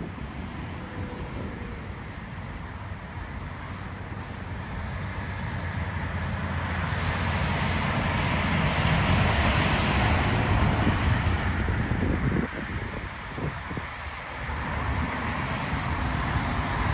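Road and engine noise from a moving vehicle: a steady rumble with a rushing hiss. It grows louder over several seconds, dips briefly about twelve seconds in, then picks up again.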